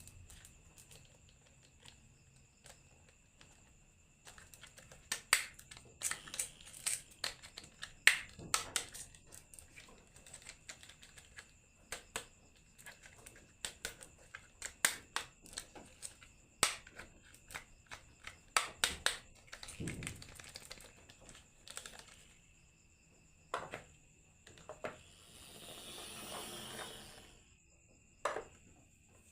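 Marbles clicking and clattering down a wooden HABA marble run, in irregular runs of sharp knocks, with a longer rattling rush near the end.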